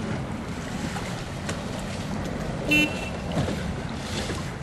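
Wind buffeting the microphone over choppy water, with one short, loud horn blast a little past halfway: a race hooter of the kind sounded as a dinghy crosses the finish line.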